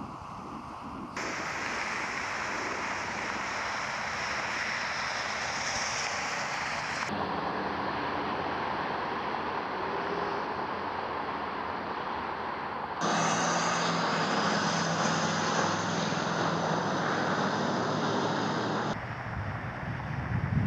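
Steady rushing ambient noise picked up by the hear-through microphones of electronic shooting earmuffs (Peltor Sport X300, Poltact, Peltor Comtac VI among them). It switches abruptly from one headset's recording to the next about every six seconds, each with a different tone and brightness.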